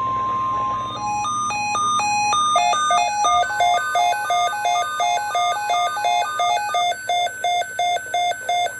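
NOAA Weather Radio's steady 1050 Hz warning alarm tone, which stops about a second in, with a weather radio receiver's electronic alert sounding over it and after it: rapid beeps stepping between pitches that settle into even pulses about three a second.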